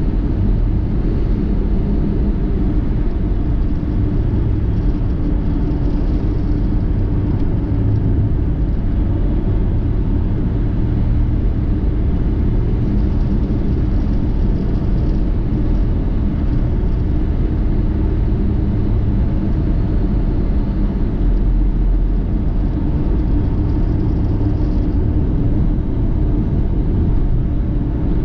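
Road vehicle driving at a steady speed: a continuous low rumble of engine and road noise with a few steady low hums.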